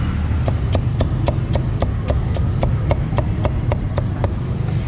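Meat cleaver chopping crispy roast pork belly on a wooden chopping block: a quick, even run of about fifteen knocks, roughly four a second, starting about half a second in and stopping near the end, over a steady low rumble.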